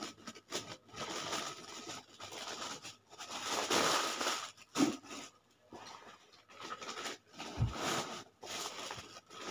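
Plastic medicine packets crinkling and rustling in irregular bursts as the paper name labels are torn off them, with a soft low bump about three-quarters of the way in.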